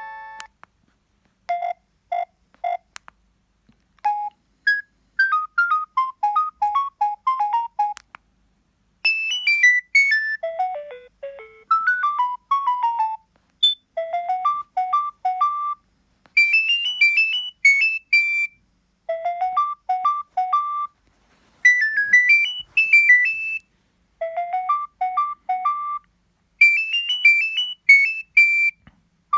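Nokia 7250i preloaded ringtone melodies: quick, high electronic notes in short phrases of one to three seconds, each followed by a brief pause.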